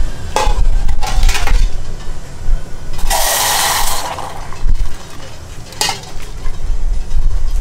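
Water poured from a small aluminium pot into another aluminium pot on a lit gas burner, splashing for about a second, roughly three seconds in. Short metallic knocks and clinks of the pots come before it and again near the end, over a low steady rumble.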